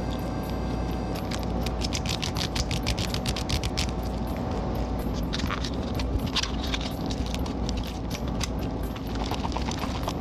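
Wooden chopsticks whipping natto in its tray, a fast clatter of clicks and scrapes against the tray that starts about a second in.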